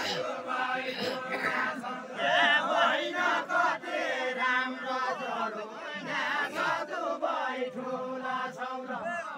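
Group of men singing a deuda folk song together in a chanting melody, the many voices wavering around one tune, with crowd voices mixed in.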